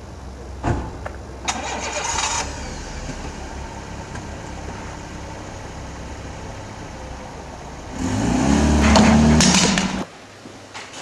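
Small hatchback car's engine cranked and starting about a second and a half in, then idling steadily. Near the end it revs up, rising in pitch, as the car pulls away, and the sound cuts off abruptly.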